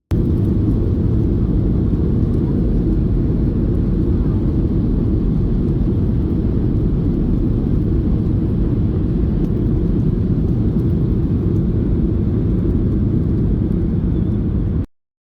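Steady low rumble of a Boeing 737-800's CFM56 engines and airflow heard inside the cabin, cutting off abruptly near the end.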